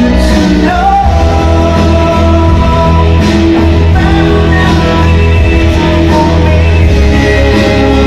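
Loud rock music with guitar and bass, with a male singer's voice over it.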